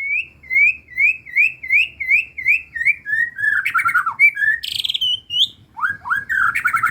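White-rumped shama (murai batu) song, mimicking collared kingfisher (tengkek buto) and prenjak calls. It opens with a run of about nine rising whistled notes, about three a second, then goes into varied falling and rising phrases with a harsh buzzy note a little before five seconds in.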